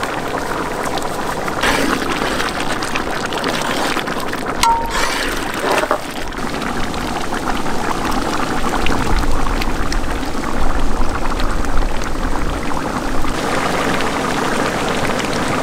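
A large metal pot of stingray curry simmering and bubbling, with a ladle stirring through the thick gravy.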